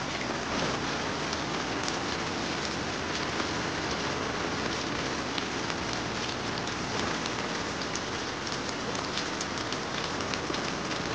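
Steady heavy rain falling, a dense even hiss scattered with many sharp drop ticks.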